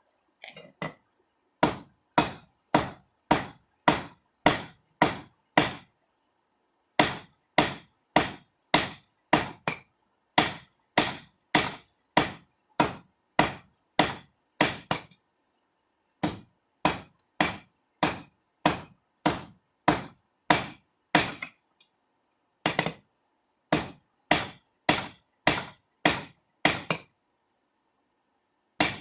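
Blacksmith's hand hammer striking hot rebar steel on an anvil while forging a knife blade, steady blows at about two a second in runs of several seconds, broken by short pauses of about a second.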